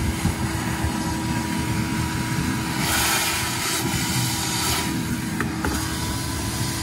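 Vacuum cleaner motor running steadily with a constant whine, sucking leftover water out of a drained hot tub; the hiss of air and water grows louder for about two seconds about three seconds in.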